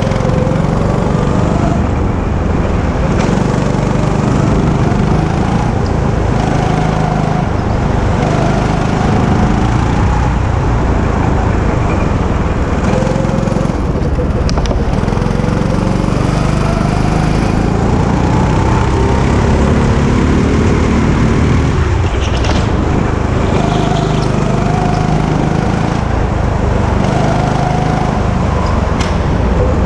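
Go-kart engine running under load, heard from the driver's seat over a steady low rumble. Its pitch rises and falls over and over as the throttle opens and closes through the corners.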